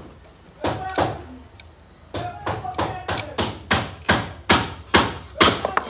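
Hammer blows struck over and over: two sharp knocks about a second apart, then a steady run of about a dozen more at roughly three a second.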